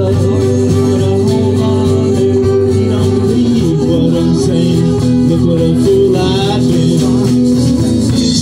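Live band playing acoustic string music, with guitars and an upright bass.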